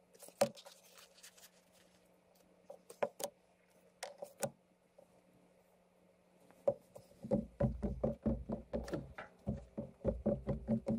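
Scattered knocks and taps, then from about seven seconds in a quick run of knocks, about four or five a second, over a faint steady low hum.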